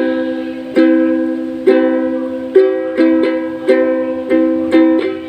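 Kadence concert ukulele strummed about ten times on the same chord, each strum ringing out and fading, the strums coming quicker in the second half.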